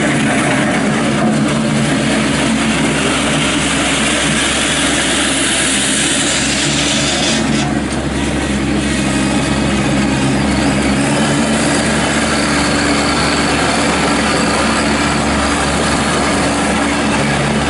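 Kubota B2301 compact tractor's three-cylinder diesel engine running steadily at a constant speed.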